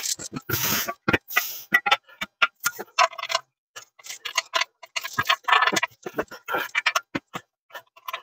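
Irregular clicks, taps and short scrapes of a steel bed-frame rail and its hardware being handled and fitted together by hand.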